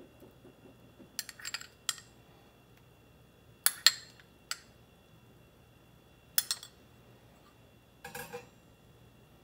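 Spoon clinking and tapping against a tall drinking glass while mango cubes are spooned onto a mango shake: a handful of short clinks spread out, the sharpest about four seconds in.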